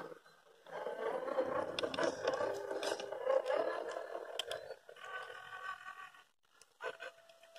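Small RC crawler truck driving over dirt: its brushless electric motor and gears whine while the tyres scrape on the ground. The sound starts about a second in and eases off past the middle.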